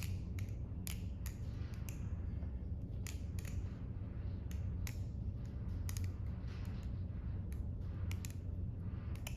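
Stainless steel balisong (butterfly knife) being flipped: a run of irregular sharp clicks and clacks as the heavy handles swing open and shut around the blade, a few a second, over a low steady hum.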